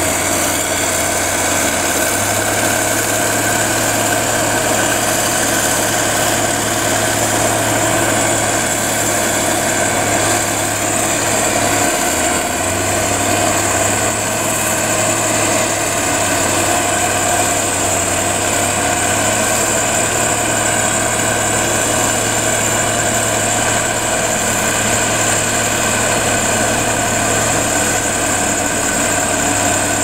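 Heavy diesel engines of a road roller compactor and a Komatsu motor grader running steadily together, a constant low hum with a brief shift in its pitch about twelve seconds in.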